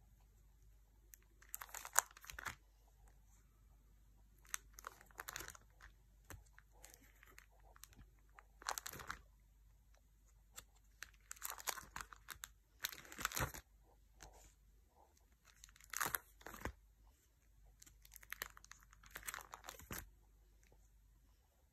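Plastic pocket pages of a trading-card binder being turned and handled, crinkling and rustling in short bursts every few seconds.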